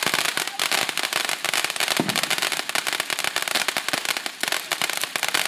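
Ground firework fountain spraying sparks, with dense, rapid crackling that never lets up.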